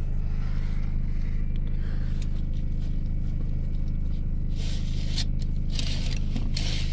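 Fabric cab curtains rustling and scraping as they are drawn and adjusted, in a few short bursts, the strongest about two-thirds of the way through. A steady low hum from the parked van runs underneath.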